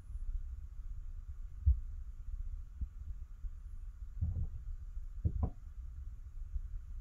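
Dull thuds coming through the ceiling from the floor above, over a steady low hum: one heavy thump about two seconds in, a smaller one, a short cluster of knocks around four seconds, and two quick sharper knocks near five and a half seconds.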